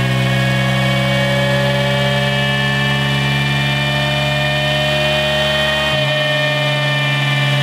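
Honda Monkey 125's single-cylinder engine on its stock exhaust, running under load on a rolling-road dyno, its revs climbing slowly and steadily through the pull. A low steady hum underneath drops away about six seconds in.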